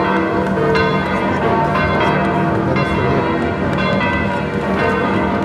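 The bronze bells of St Peter's Basilica pealing together for Christmas. Strikes overlap with new ones every second or two over a steady deep hum.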